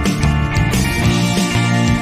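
Background music with a guitar and a steady bass line.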